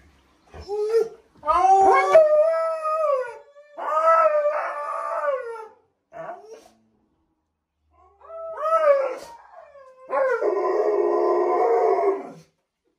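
Alaskan Malamute howling in the bath, complaining at being washed. About six wavering howls come with short pauses between them, and the last, near the end, is about two seconds long.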